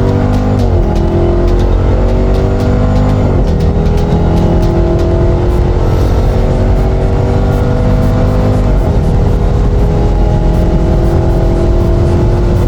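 Car engine accelerating hard through the gears, its pitch climbing steadily and dropping sharply at each of three upshifts.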